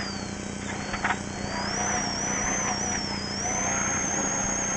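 Rally car engine at full throttle heard from inside the cabin, accelerating along a straight; its high whine climbs, drops briefly near the middle as it changes up, then climbs again. A short knock about a second in.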